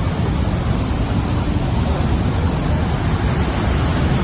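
Waterfall: a loud, steady roar of falling water with no breaks.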